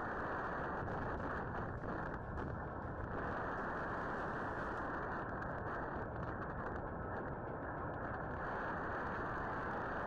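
Tornado wind rushing past a porch doorbell camera, a steady dense noise buffeting its microphone and heard dull through the camera's narrow audio.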